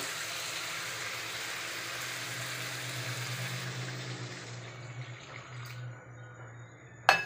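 Water poured from a steel jug into a hot kadai of fried fish and masala, hissing and splashing, to make the fish curry gravy. The hiss tapers off after about five seconds, and there is a sharp knock near the end.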